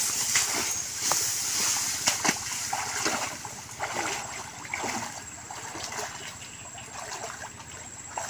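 Wading and pushing through tall grass at a muddy stream's edge: irregular splashes and crackling leaf rustle, busiest in the first few seconds, over the steady rush of running water.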